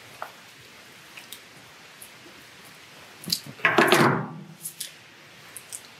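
A few light clicks from a hand-held cable tie tensioning gun being handled and adjusted, then a loud clatter about three and a half seconds in as the metal-and-plastic tool is set down on a table, followed by a few small clicks.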